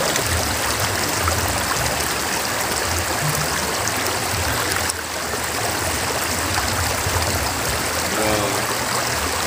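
Fast-flowing shallow river running over rocks: a steady rushing babble of water.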